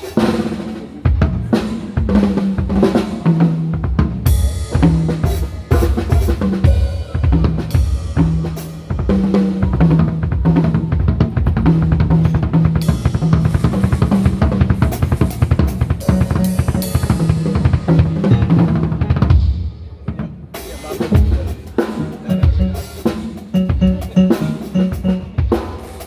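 A band playing through a sound check: a drum kit beating out a steady groove of kick, snare and rimshots, with a low bass line moving under it. The playing drops away briefly about twenty seconds in, then comes back.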